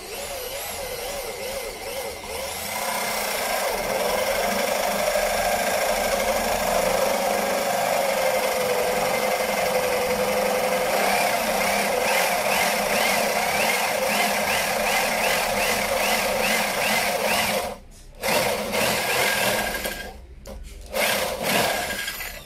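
Total 850 W corded drill in plain drill mode boring a 32 mm hole into a wooden block with a large wood bit. The motor runs steadily under load, its pitch wavering as the bit cuts. It stops about 18 seconds in, then runs again in short bursts near the end.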